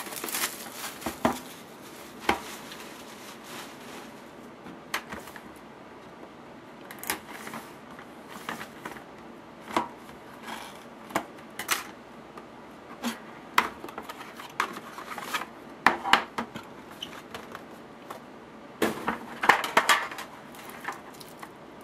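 Scattered sharp clicks and taps from an Upper Deck The Cup hockey card box and its packaging being opened and handled, with a denser run of rustling and clicking near the end.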